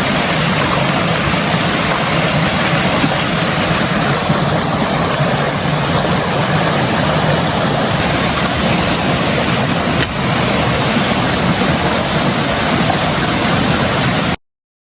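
A creek waterfall rushing: a steady, loud, even roar of falling water close by. It cuts off suddenly just before the end.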